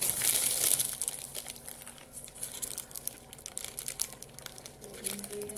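McDonald's burger wrapper crinkling as it is peeled back and folded around an Ebi Burger, loudest in the first second, then lighter scattered crackles.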